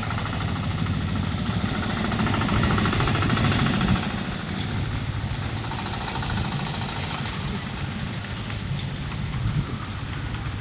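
Amusement park miniature railway train running past with its engine going: a steady low engine hum with a fast rhythmic chatter, loudest about two to four seconds in, then slowly fading.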